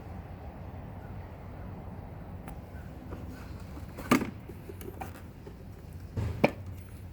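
Two sharp knocks, about four seconds in and again near the end, the second just after a short dull thud, over a low steady hum.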